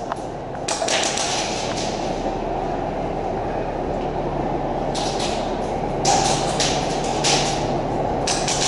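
Airsoft guns firing in short rapid bursts, several a few seconds apart, over a steady low rumble of the indoor playing field.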